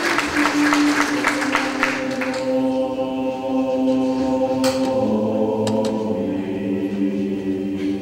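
Audience applause for the first two seconds or so, as choral music begins: a choir holding long, sustained chords, with the chord shifting lower about five seconds in.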